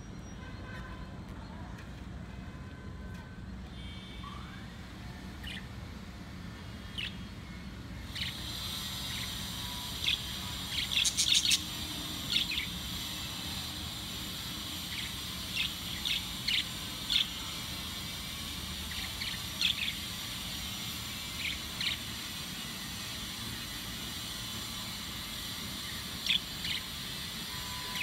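Caged budgerigars chirping: short, high chirps, scattered at first and then coming more often, with a quick cluster of several partway through.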